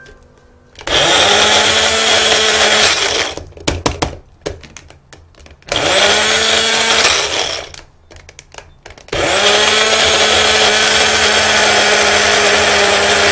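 Small personal blender grinding green chili peppers with olive oil, run in three bursts: about two seconds, then a shorter one, then running steadily from about nine seconds in. Each start spins up quickly to a steady whirr, and a few clicks and knocks from the cup being handled come between the first two runs.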